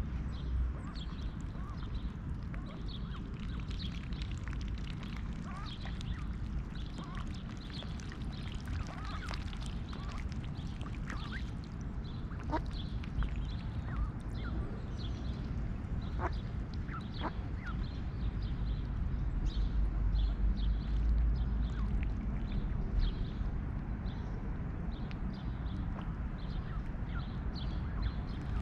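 Mallard ducks quacking and chattering, with many short clicks scattered through it, over a steady low rumble.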